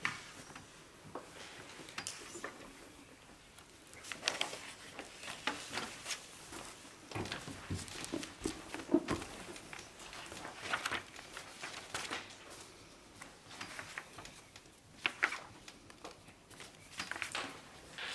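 Paper handling around meeting tables as a register is passed round and signed: scattered rustles of sheets, small knocks and shuffles of people at their seats.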